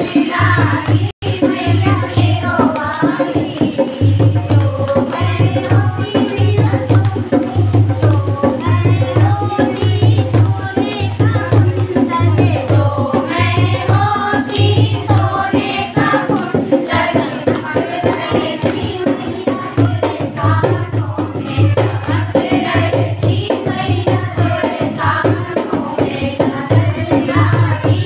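Women singing a song together, accompanied by a dholak hand drum beating a steady rhythm of deep strokes.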